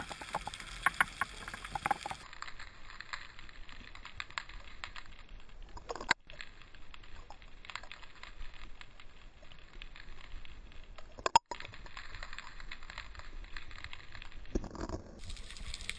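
Underwater sound from an action camera's housing: a muffled hiss of water with scattered clicks and crackles, busiest in the first couple of seconds, cut short by brief drop-outs around six and eleven seconds in.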